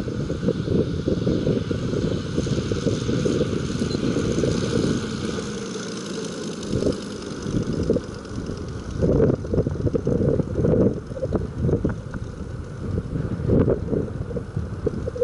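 Moki S180 five-cylinder radial petrol engine of a large-scale La-7 RC model warbird running, mixed with heavy wind buffeting on the microphone that grows gustier about halfway through.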